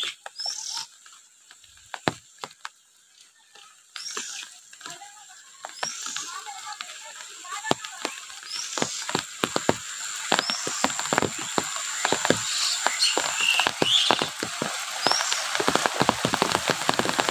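Frogs croaking over flooded fields, with birds chirping: short croaks and clicks come thicker and louder from about four seconds in, and rising chirps recur every second or two.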